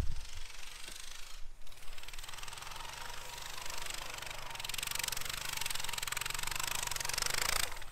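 A thump at the start, then a pit bike's small engine running steadily at a distance as it rides through deep snow. A hiss builds over the last few seconds.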